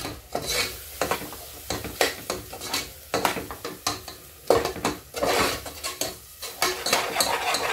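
Slotted stainless-steel spatula stirring and scraping a thick spiced onion-tomato masala around an aluminium pressure cooker, with irregular metal-on-metal clinks and scrapes over a sizzle of frying masala. This is the stage where the freshly added spice powders are fried into the masala.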